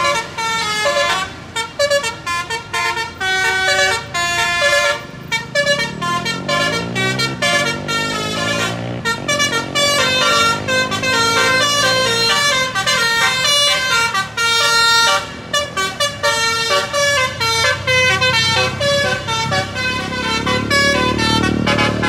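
A bus's Basuri musical air horn (DAV module) playing a rapid melody of short stepped notes, over the diesel engine of the coach climbing, which rises in pitch about a quarter of the way in and grows louder near the end.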